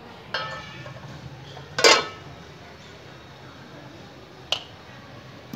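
Aluminium cooking pot and its lid clanking: a ringing clatter, then a loud clank that rings on a little under two seconds in, and a short sharp click near the end, as the lid is handled and taken off the pot.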